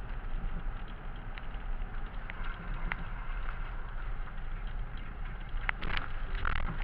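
Car driving, heard from inside the cabin: steady road and engine noise with scattered clicks and knocks as the tyres run over a wooden plank bridge and onto gravel. A cluster of louder clicks comes near the end.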